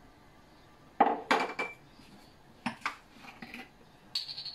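Metal spoon clinking and tapping against a stainless steel mixing bowl: a loud cluster of clinks about a second in, a few more clinks a second or two later, and a short ringing clink near the end.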